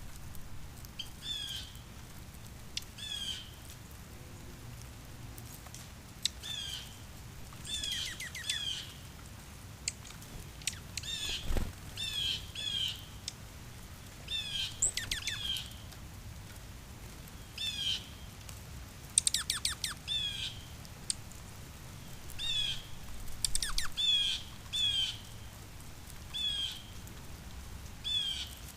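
Wild songbirds giving short chirping calls again and again, often two or three in quick succession, with a few fast rattling call series in the middle. There is a single soft thump about a third of the way through, over a low steady outdoor rumble.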